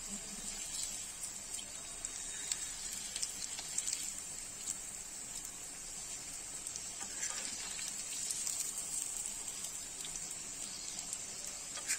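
Hot oil sizzling steadily in a pan as egg-dipped, vermicelli-coated potato pieces deep-fry, with scattered small crackles while the pieces are turned over with a fork.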